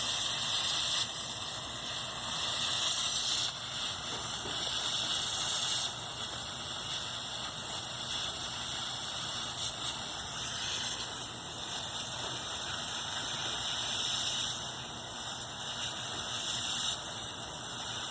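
Electric arc drawn from a roughly 75-volt lithium battery pack through nichrome resistance wire at about 30 to 40 amps, held as a long steady hiss that steps up and down in level every few seconds.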